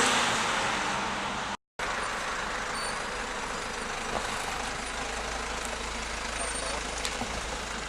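Road traffic noise. A vehicle passing close fades away over the first second and a half; then, after a brief cut to silence, a steady hum of street traffic continues.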